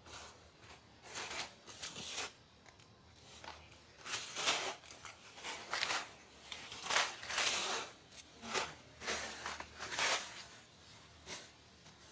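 Irregular bursts of rustling and scraping, with the loudest cluster between about four and ten seconds in; no calls or cries.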